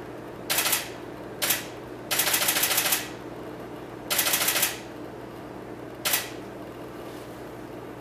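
Canon DSLR shutter firing in continuous bursts: five bursts of rapid clicking, two short ones, then a run of about a second, another of about half a second, and a short one about six seconds in.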